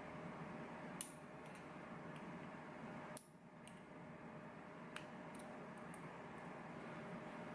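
A few faint, sharp metal clicks as small lock parts and tweezers are handled while a pin-tumbler lock is taken apart, the clearest about a second in, three seconds in and five seconds in, over a steady low hiss.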